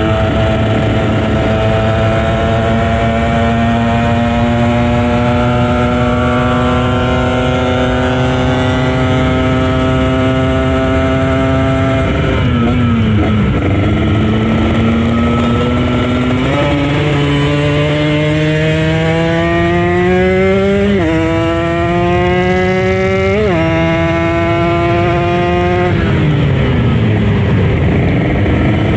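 Kawasaki Ninja RR 150 two-stroke motorcycle engine under way. Its pitch climbs slowly for about twelve seconds, dips as the throttle comes off, then climbs again with two quick upshifts about three quarters of the way through, and falls away near the end.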